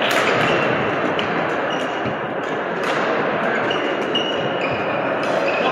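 Badminton rally on a wooden sports-hall floor: a string of sharp racket hits on the shuttlecock and short high squeaks of court shoes, over the steady hubbub of a busy hall.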